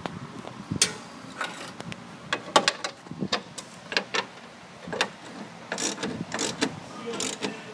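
Socket ratchet tightening the gear-oil fill bolt on a walk-behind trencher's gearbox: short bursts of ratchet clicking at irregular intervals, with pauses between strokes.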